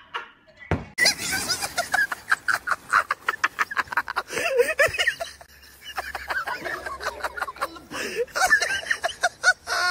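Water splashing in a swimming pool as people fall in and thrash about, with quick, repeated laughter over it. The sound starts abruptly about a second in.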